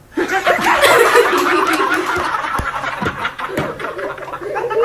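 A group of people laughing loudly at once, many voices cackling and chuckling over each other, breaking out suddenly.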